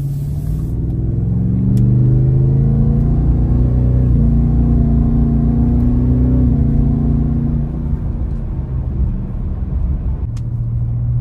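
2023 Ford Raptor R's supercharged 5.2-litre V8 pulling under light throttle (about 25%) with an S&B aftermarket intake fitted. The engine note climbs for the first few seconds, then drops away as the throttle eases and settles to a steady low note near the end.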